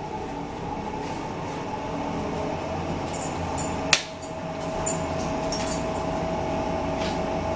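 Forks clinking and scraping on plates during a meal, with one sharp clink about four seconds in, over a steady background hum.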